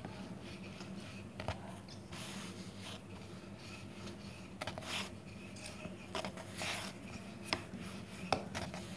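Wooden rolling pin rolling out naan dough on a floured board: soft, irregular rubbing and scraping strokes with a few light clicks, over a faint steady hum.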